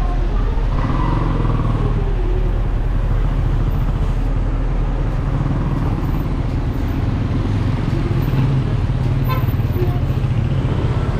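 Street traffic: a large bus's diesel engine running close by in a steady low hum, with motor scooters passing.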